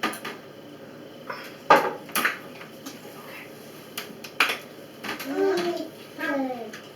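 A handful of sharp clinks and knocks of dishes and cutlery being handled at a table, with a short stretch of indistinct talk near the end.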